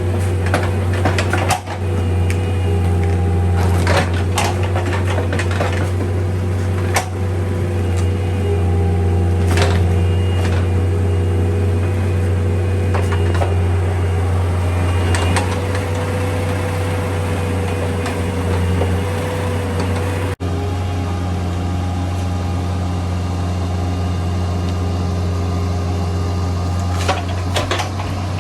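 Bobcat 341D mini excavator's diesel engine running steadily under load, with a steady hydraulic whine. Above it come sharp cracks and snaps of wood, about seven, as the stump and its roots are broken out.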